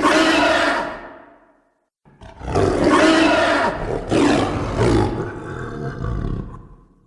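Two monster roar sound effects for a Hulk-like character: a short roar that fades out within about two seconds, then, after a brief silence, a longer roar lasting about five seconds that tails off near the end.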